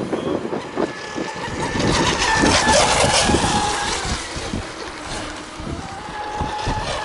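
Gusty wind buffeting the microphone over the faint, steady whine of fast electric model racing boats running on the lake.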